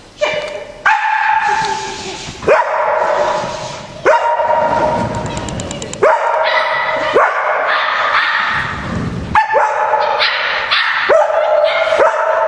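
Dog barking repeatedly, sharp barks about once a second, during an agility run.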